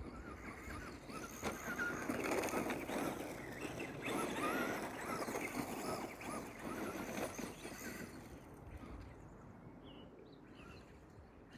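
Traxxas Rustler electric RC truck driving over gravel: its motor whines up and down in pitch as the tyres throw loose stones, loudest in the middle and fading away after about eight seconds.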